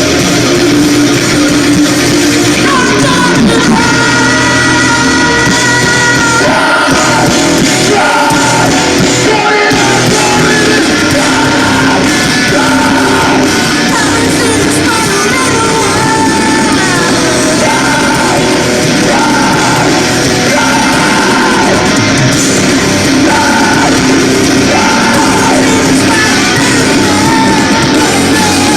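Live rock band playing loud, with distorted electric guitars, drums and a lead vocalist singing and yelling, recorded from the crowd.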